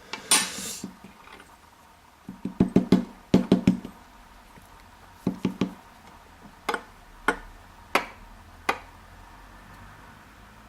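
Small metal lock parts clicking and tapping as pins and springs are worked out of a padlock cylinder. A short scrape comes first, then two flurries of quick knocks, then four single sharp clicks spaced a little under a second apart.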